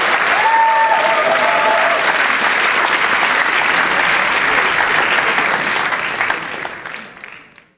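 A large theatre audience applauding steadily, fading out over the last second or two.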